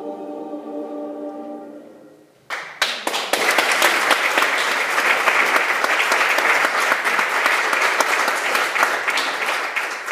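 The last held chord of a choir with piano and band fades away, then an audience breaks into applause about two and a half seconds in, clapping steadily until near the end.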